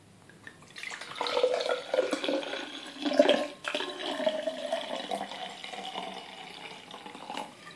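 Vodka pouring from a bottle into a pint glass over ice.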